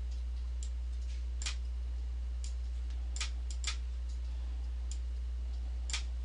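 Computer mouse clicking about seven times at uneven intervals, sharp single clicks, over a steady low hum.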